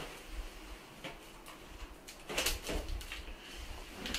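Latex balloon neck being stretched and worked between the fingers while it is tied off: short rubbery squeaks and rubbing, strongest about two and a half seconds in.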